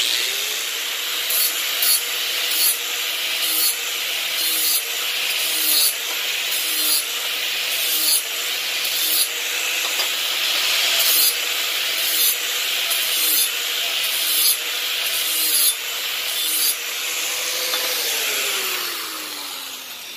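Angle grinder running while its disc rubs over the cut edges of an aluminium tube to knock off the burrs, the grinding swelling in strokes about once a second over a steady motor whine. Near the end the grinder is switched off and spins down with a falling whine.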